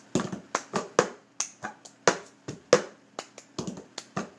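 Hand claps and a plastic cup being tapped and knocked down on a wooden tabletop, playing the cup-game rhythm as a quick, uneven pattern of sharp strokes.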